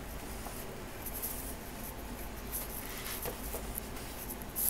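Paper rustling as a hand turns and brushes the pages of a thick photobook, a few brief soft swishes, the loudest near the end.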